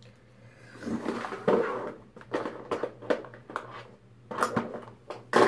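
Small cosmetic bottles and containers being handled and set down on a surface: an irregular string of light clicks, taps and clatters, with some rustling.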